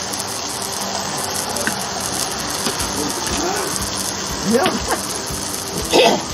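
Enoki mushrooms, peppers and sausage sizzling on a hot electric grill, a steady hiss, with short bits of voice a few seconds in and near the end.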